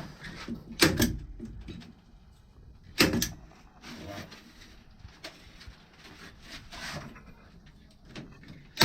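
A stapler firing staples through gypsum ceiling board: a sharp double crack about a second in, another about three seconds in and one more at the end, with faint handling of the board between.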